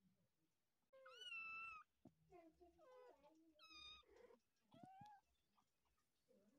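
Kittens mewing: a loud, high-pitched mew about a second in, another about two and a half seconds later and a short rising one near five seconds, with softer, lower calls in between.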